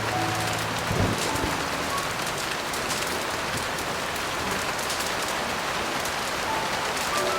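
Heavy rain falling steadily, a dense even hiss, with a few soft piano notes faintly underneath. There is a brief low thump about a second in.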